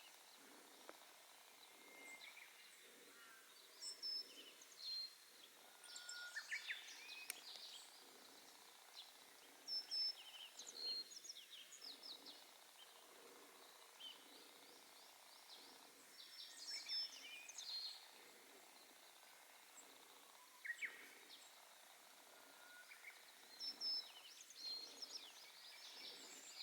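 Small songbirds giving short, high chirps and call notes in scattered clusters, faint against quiet outdoor background.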